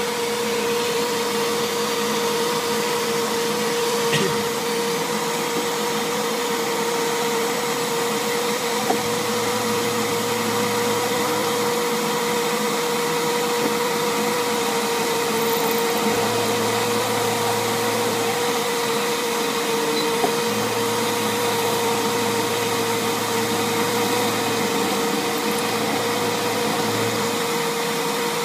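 Shop vacuum running steadily beside a small CNC milling machine as it cuts with a quarter-inch end mill. A steady whine sits over the vacuum's rush, and a lower hum switches on and off several times as the machine moves.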